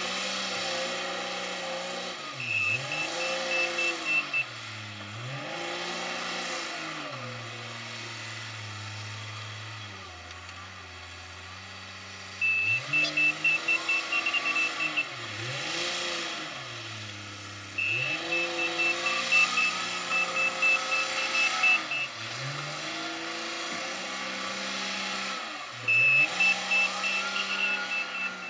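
Komatsu WA350 wheel loader's diesel engine revving up and dropping back again and again as it works, with a reversing alarm of rapid high beeps, about four a second, coming in four spells of two to four seconds each as it backs up. The uploader finds this reversing sound somehow strange.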